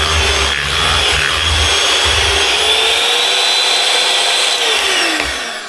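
Electric hand mixer running with its beaters in thick cake batter, a steady motor whine over a low rumble that stops about halfway through. The pitch rises a little, then the mixer is switched off and winds down near the end.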